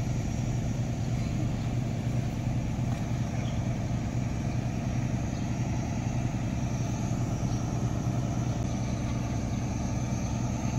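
Emergency vehicle engines idling: a steady low hum that holds the same pitch throughout.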